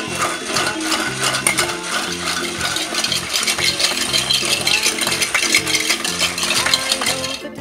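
Rapid, continuous rattling and clattering of small hard plastic pieces over background music.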